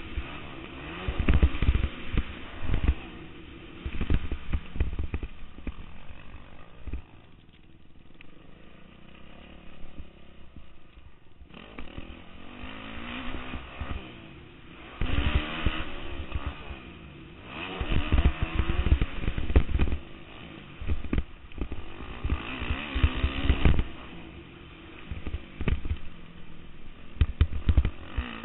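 Yamaha YZ450F motocross bike's four-stroke single-cylinder engine revving up and down as the rider works the throttle round the track, with heavy rumbling wind buffeting on the helmet camera. The engine goes quieter for a few seconds about a third of the way in, then picks up again.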